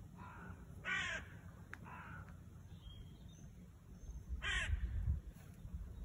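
A crow cawing four times, with loud caws about a second in and again just past the middle and two fainter ones between. A low rumble runs underneath and grows stronger in the second half.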